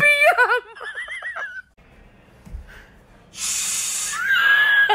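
A woman's high-pitched laughter, muffled behind her hand, warbling up and down for about a second and a half, like a whinny. After a short quiet gap, a hissing noise starts near the end with a held tone over it.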